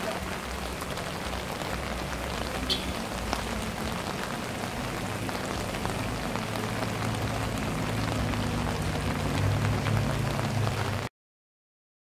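Steady rain falling, over a low steady hum; the sound cuts off abruptly about eleven seconds in.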